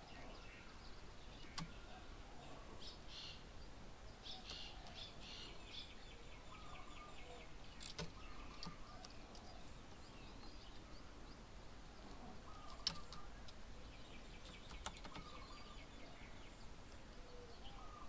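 Faint birdsong: short whistled notes and fast trills from birds around the open fields, over a low outdoor background. A few sharp clicks are heard, the loudest about two-thirds of the way through.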